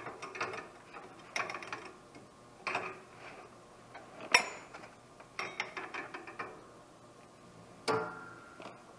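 Socket wrench ratcheting as a bolt on a Camso X4S track frame is tightened to about 30 foot-pounds: short groups of ratchet clicks every second or so, the loudest about four seconds in, and a sharp metal click with a brief ring near the end.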